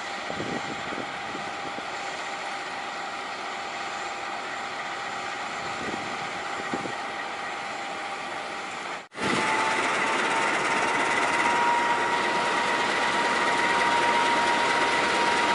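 Diesel engine of a KAI CC206 diesel-electric locomotive running as the train approaches. About nine seconds in the sound cuts off abruptly and comes back louder and closer, with a steady whine that rises slightly in pitch.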